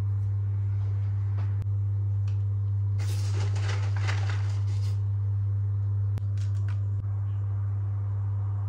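A steady low hum throughout, with about two seconds of rustling, scraping noise starting about three seconds in.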